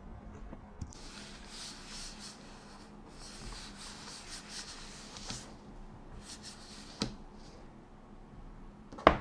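Hands sliding and rubbing over the aluminium palm rest of a space black M3 Max MacBook Pro, a run of soft swishing strokes, with a couple of light taps and one sharp click near the end.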